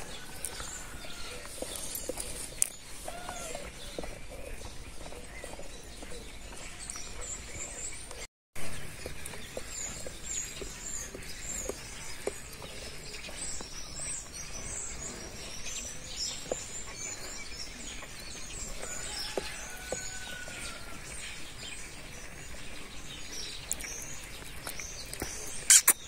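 Outdoor background noise with small birds chirping faintly and intermittently, most of the chirps coming in the middle stretch. The sound drops out briefly about eight seconds in.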